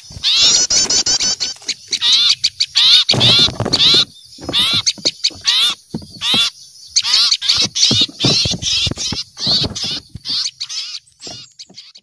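Small songbirds in a noisy chorus of rapid, repeated chattering alarm calls: the mobbing uproar small birds raise on seeing an owl, played as a bird-trapping lure recording. The calling thins out and fades near the end.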